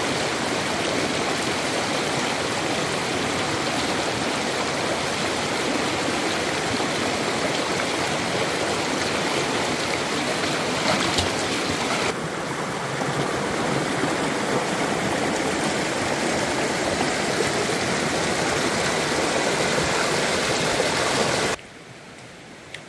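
Mountain stream rushing and splashing over rocks, a steady loud hiss of water. About halfway through it changes abruptly, and near the end it drops sharply to a much quieter hiss.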